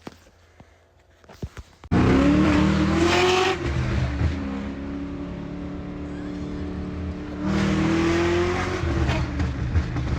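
Car engine running after a quiet start with a few faint clicks; from about two seconds in it is loud, its pitch climbing and levelling off as the car accelerates, then easing and climbing again near the end.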